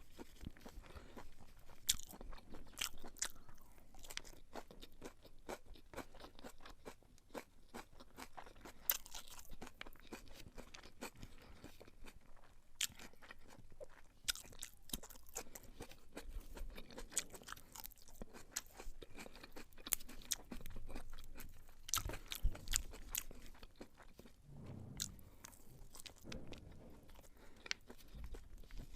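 Close-miked eating sounds: beef pilau (rice with beef) being chewed with moist clicks and crunches, irregular, with occasional soft thumps.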